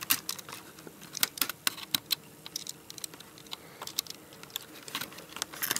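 Irregular small clicks and taps of plastic and fingernails as fingers work the laptop's thin black and white wireless antenna wires out of their plastic routing channels.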